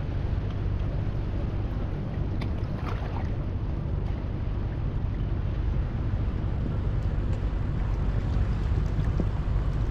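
Steady low rumble of wind buffeting the microphone, over small waves washing among rocks in shallow sea water, with a few faint ticks.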